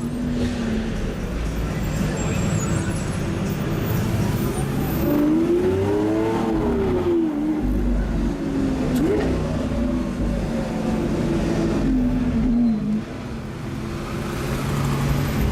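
Car engines running, with one engine note rising and falling about six seconds in and a shorter rise soon after.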